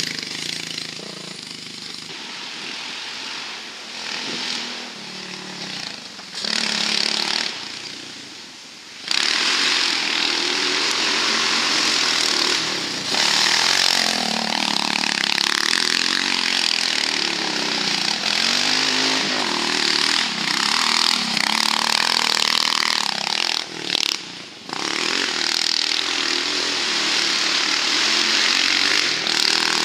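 Off-road buggy's engine revving up and down as it is driven hard on a dirt track, with tyres throwing dirt. It is fainter for the first nine seconds, then gets suddenly loud as the buggy comes close, with a brief drop about 24 seconds in.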